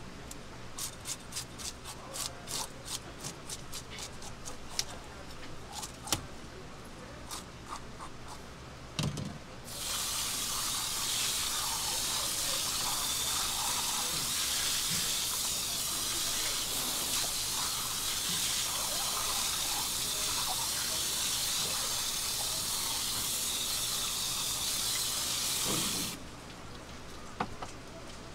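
A metal fish scaler scraping the scales off a yellow mullet on a wooden chopping block in quick repeated strokes. About ten seconds in, running water starts pouring steadily over the fish and block, then cuts off suddenly near the end.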